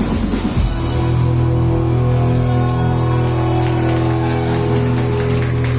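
Live rock band playing the closing chord of the song: after a last beat it holds one long sustained chord on bass and guitars, with drum and cymbal strikes over it, and the chord cuts off near the end.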